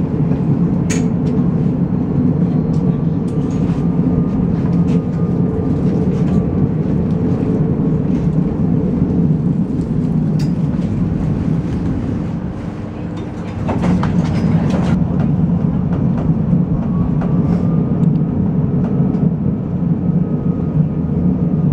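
Tram running along street rails, heard from inside the car: a steady low rumble with scattered clicks from the wheels on the track. A faint high whine rises and falls twice, and the rumble eases briefly about two-thirds of the way through.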